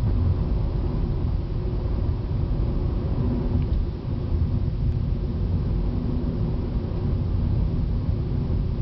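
Steady car engine and tyre noise heard from inside the cabin while driving at road speed: a low, even rumble with no distinct claps or bangs.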